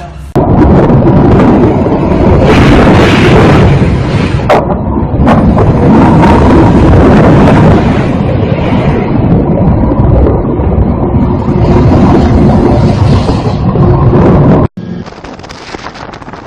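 Storm wind at sea buffeting the microphone, overloading it into a loud, distorted rush of noise with the sea crashing under it. It stops suddenly near the end, giving way to quieter wind and waves.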